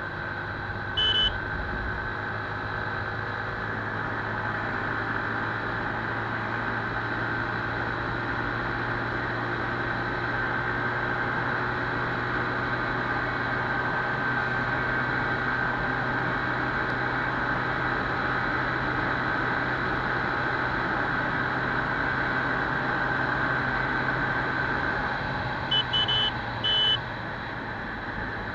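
Keeway 100cc motorcycle running steadily at high speed, with engine and wind rush, swelling a little through the middle. Short, high-pitched beeps sound about a second in and again in a quick cluster near the end.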